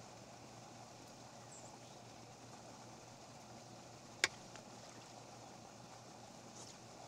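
Faint steady outdoor background over calm water, broken by one sharp click a little after four seconds in. Near the end a faint splash as a largemouth bass blows up on a topwater frog lure.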